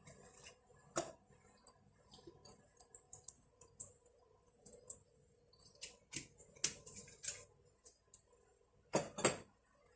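Irregular light clicks and taps of kitchen containers and utensils being handled, a little louder near the end.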